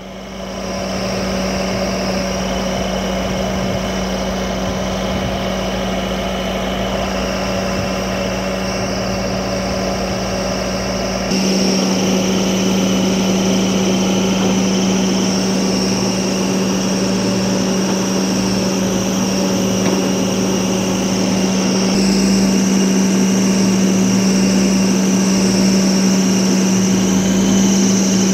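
Old JCB backhoe loader's diesel engine running steadily with a constant low hum as its backhoe arm digs soil, getting louder in two steps, about 11 and 22 seconds in.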